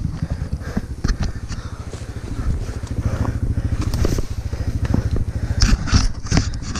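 Off-road motorcycle engine running at low revs, with a fast, even pulsing, and scattered knocks and clatter, several of them about six seconds in.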